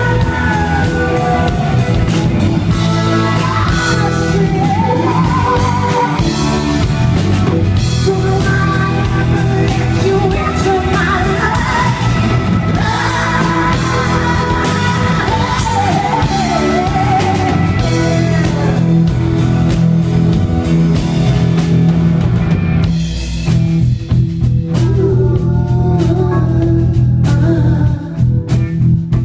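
Live rock band: a woman singing lead over electric guitar and drums.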